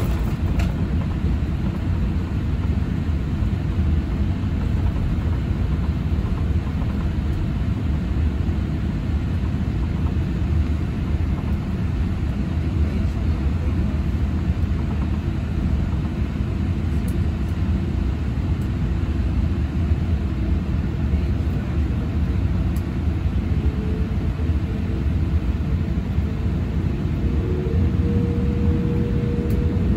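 Cabin noise of a Boeing 787-8 taxiing, heard from inside beside its Rolls-Royce Trent 1000 engine: a steady low rumble, with a faint whine coming in about three quarters of the way through and rising slightly near the end.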